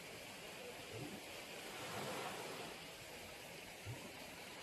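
Faint, steady outdoor background hiss with no distinct calls or other sounds standing out.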